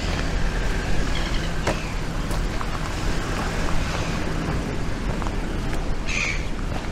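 Steady low rumble of a car running close by, with street noise around it. A short high bird call near the end.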